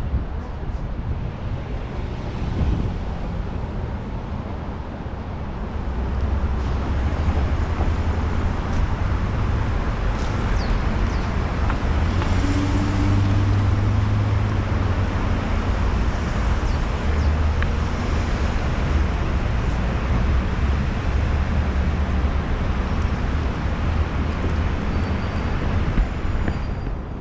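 Street and road noise heard from a moving bicycle in city traffic: a steady low rumble with hiss over it, swelling about six seconds in.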